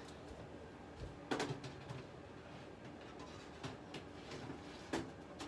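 Two sharp clicks from the air fryer toaster oven, about a second in and again near the end, as the pizza burgers go back in on the rack and the door is closed, over a faint steady hum.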